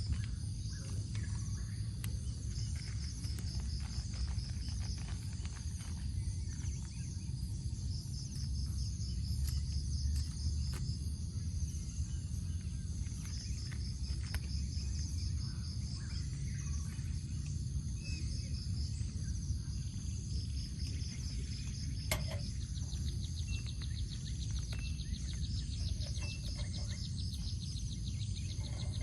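Crickets and other insects trilling steadily in several high, partly pulsing bands over a low rumble, with scattered faint clicks and a few short bird chirps in the second half.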